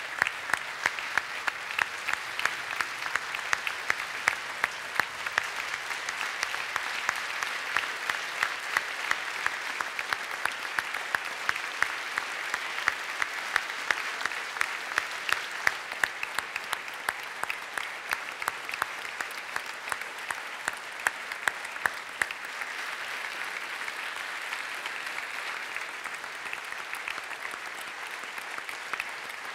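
Large audience applauding, a dense, steady clatter of many hands clapping that thins slightly over the last several seconds.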